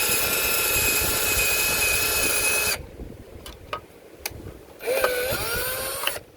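Power drill driving a screw through the keypad's back into the wall: the motor runs steadily then stops abruptly, a few clicks follow, and a second short burst spins up and cuts off near the end.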